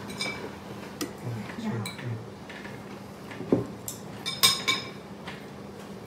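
Chopsticks and ceramic tableware clinking at a dining table: scattered light taps, a dull knock about three and a half seconds in, and the loudest, ringing clinks just after four seconds. A brief low murmur of voice comes about a second and a half in, over a faint steady hum.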